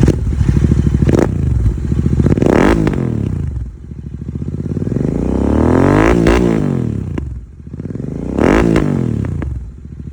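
Royal Enfield Interceptor 650's parallel-twin engine, fitted with Red Rooster Performance aftermarket exhausts with dB killers in, being revved at standstill soon after a cold start. It gives quick throttle blips about a second and two and a half seconds in, a longer climb and fall peaking around six seconds, one more blip near eight and a half seconds, then drops back to idle.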